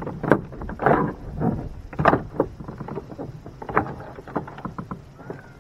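Irregular knocks and rattles on a small fishing boat, coming in short clusters about every half second to second.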